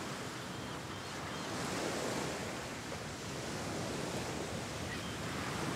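Sea surf washing against the rocks below a cliff, a steady rushing wash that swells a little about two seconds in, mixed with wind noise on the microphone.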